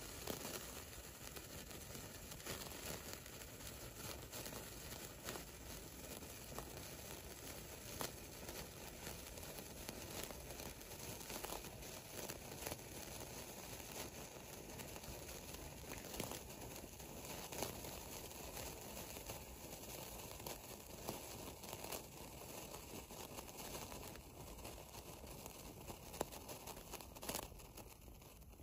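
A 16 cm sparkler burning: a faint, steady crackle made of many small pops as it throws sparks, burning down to its end.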